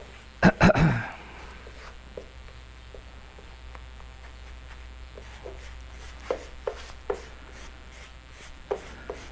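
Backing paper crackling as it is handled and pulled off vinyl wrap, loudest in a short burst about half a second in, followed by scattered light ticks and rubbing.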